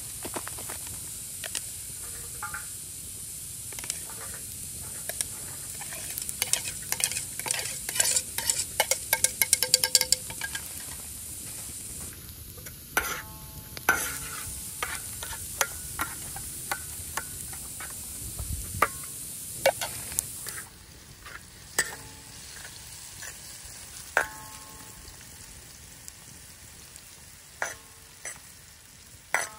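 Food sizzling in a pan while a utensil stirs and scrapes it, with a quick run of clicks and taps in the middle and a few sharp clinks that ring like metal on the pan. The sizzle drops noticeably about two-thirds of the way through.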